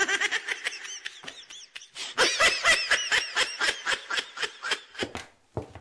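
A high-pitched voice laughing in a long, rapid run of short cackles, about four or five a second, trailing off near the end.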